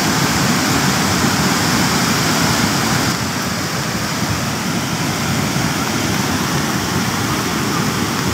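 River in flash flood: a torrent of muddy water rushing past in a loud, steady wash of noise.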